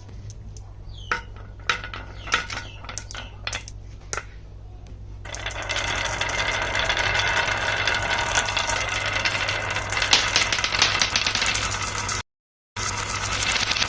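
Marbles clicking on a HABA wooden marble run, a few separate clicks at first, then from about five seconds in a loud continuous rattle of marbles rolling down the wooden tracks. The sound cuts out for a moment near the end.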